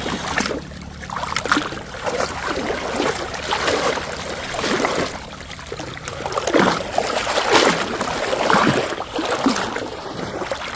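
Shallow water sloshing and splashing in irregular surges, about one a second.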